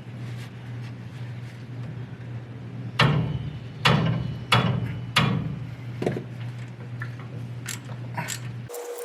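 Hand tools working on the steel differential housing: four sharp metallic clanks about two-thirds of a second apart, each ringing briefly, then a few lighter clicks, over a steady low hum that cuts off near the end.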